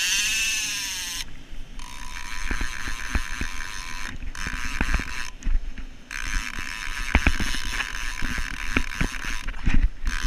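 Large overhead game fishing reel buzzing loudly as line is pulled off it, in several stretches that stop and start again, with scattered knocks from handling the rod and reel.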